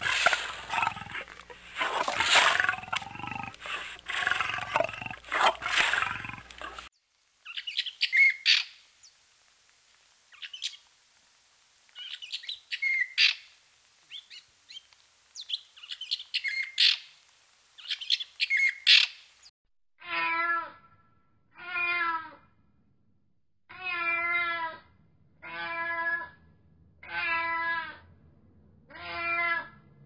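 A cougar calling in loud, rough, noisy bursts for about seven seconds. Then short, scattered high bird chirps. Then a domestic cat meowing seven times, each meow about a second long and a second and a half apart.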